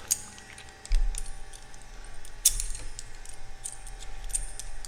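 Steel screwdriver bits clicking and clinking as they are handled and pushed into a stubby screwdriver's bit holder. A few sharp clicks, the loudest about two and a half seconds in, over low handling rumble.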